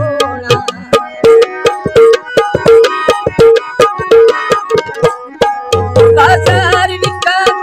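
Tabla played in a quick, steady rhythm, its ringing treble-drum note sounding on stroke after stroke, over held chords from a harmonium, accompanying a Punjabi folk song. The deep bass drum of the tabla comes in strongly about six seconds in.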